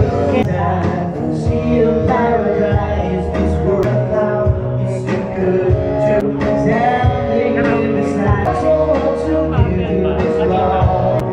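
A song with a singing voice over guitar accompaniment, playing steadily throughout.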